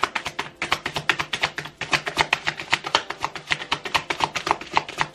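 A tarot deck being shuffled by hand: a quick, even run of crisp card clicks and slaps, about seven or eight a second.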